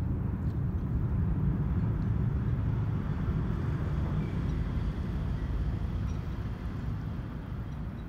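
Low rumble of a passing motor vehicle, swelling at the start and fading toward the end.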